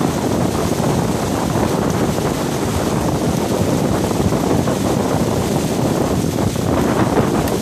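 Hailstorm: hail and wind making a dense, steady clatter and rush that holds level throughout.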